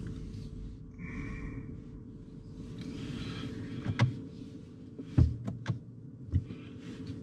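Inside the cabin of a BMW i3s rolling slowly across paving: a low tyre and road rumble with a steady hum, and about five short, sharp knocks from about four seconds in.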